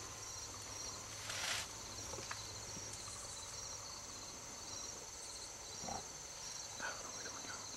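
Insects chirping in a steady, regularly pulsing high trill, with a brief rustle about a second and a half in.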